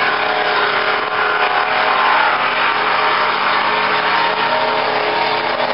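Race boat engines running at speed across the water, a steady drone with several held tones.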